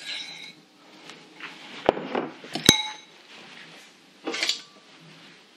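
Kitchen dishes and cutlery clinking. A fork scrapes in a mixing bowl while topping is sprinkled out. About two seconds in comes a knock, then a single sharp ringing clink as the bowl is set down, and a brief scuff follows near the end.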